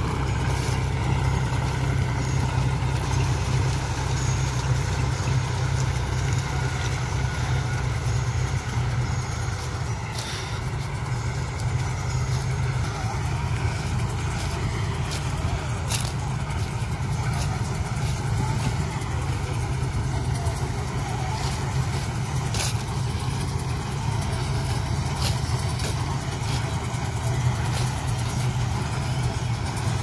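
Diesel farm engines running steadily: a John Deere tractor pulling a trailer, with a corn harvester at work joining in later. Scattered sharp clicks come in now and then through the second half.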